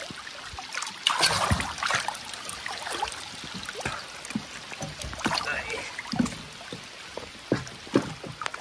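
Rain falling on open lake water and a wet wooden jetty, a steady wash of noise, with irregular knocks that fit footsteps on the wet deck boards.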